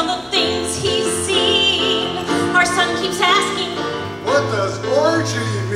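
A woman singing into a microphone over instrumental accompaniment, her voice sliding between held notes above steady chords.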